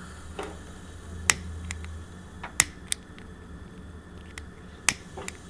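Hand-held lighter clicking at the burner of a two-burner tabletop gas stove, a handful of sharp single clicks spaced unevenly, as the gas is being lit; the burner has not yet caught.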